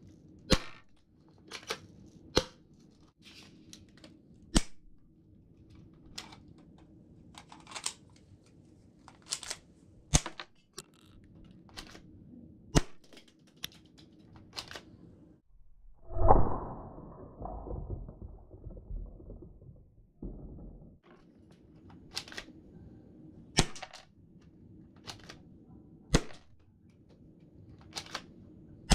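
Airsoft gun firing single shots, each a sharp snap, spaced a second or two apart. About sixteen seconds in comes one louder, longer clatter that dies away over a few seconds.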